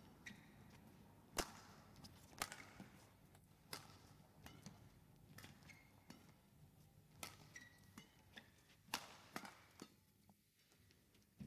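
Badminton rally: the shuttlecock is struck by rackets with a sharp crack roughly every one to two seconds, with brief shoe squeaks on the court floor between shots. The hitting stops about ten seconds in, and a single knock follows near the end.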